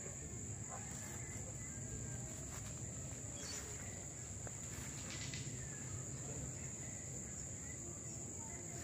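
Insects keeping up one steady, high-pitched drone, over a low, even outdoor background hum.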